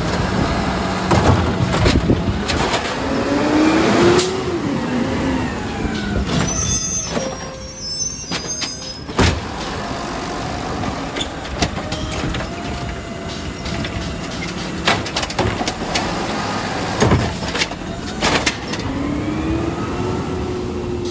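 Garbage truck's diesel engine running and revving up twice, the pitch climbing each time, with a series of sharp knocks and clanks and a brief high squeal near the middle.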